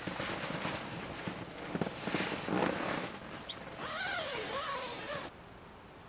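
Tent fabric and bedding rustling and crinkling as someone shifts about inside a mesh inner tent. A short wavering pitched sound rises and falls for about a second and a half near the end, then the sound cuts off suddenly.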